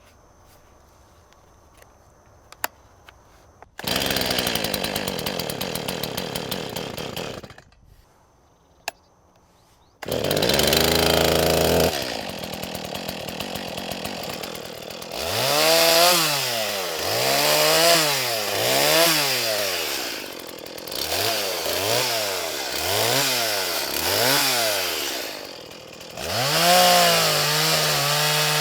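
STIHL MS 180 chainsaw's small two-stroke engine. It runs for a few seconds and stops, starts again and settles into a steady run. It is then revved up and down about ten times and held at high revs near the end.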